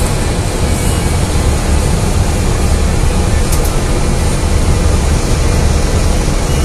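Cabin noise inside a Gillig Low Floor CNG city bus under way: a steady low engine drone with road rumble.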